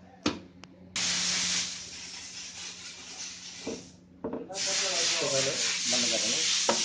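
Steel furnace lid scraping as it is slid across the top of the furnace: a rough rubbing hiss that starts abruptly about a second in and fades, then a second, longer scrape from about four and a half seconds on. A man's voice is faint underneath.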